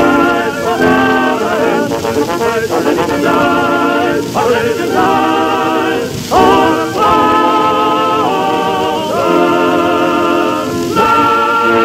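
Male chorus singing in harmony, a series of long held notes with vibrato, heard through the hiss of a 1913 Edison Kinetophone acoustic phonograph recording.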